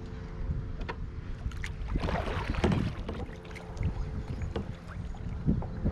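Kayak on the water, with scattered small knocks and clicks over a steady low rumble, and a louder rushing noise about two seconds in.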